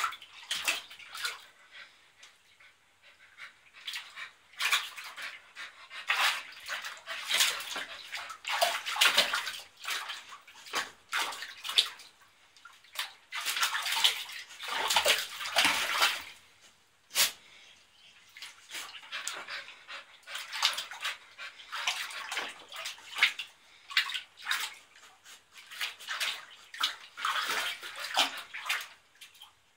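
Water splashing and sloshing in a small plastic tub as a dog moves about in it, in short irregular bursts with brief pauses.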